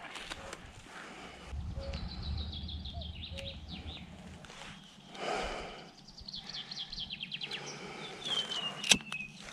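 A small bird giving rapid trills of high chirps that step down in pitch, twice, then a single falling whistle near the end, over low rustling and handling noise.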